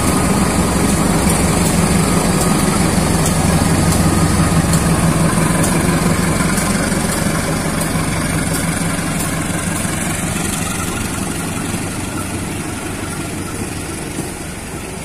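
CC 203 diesel-electric locomotive running under power as it pulls a train away. It is loud at first, then fades steadily as the locomotive draws away and the coaches roll past, with faint regular clicks.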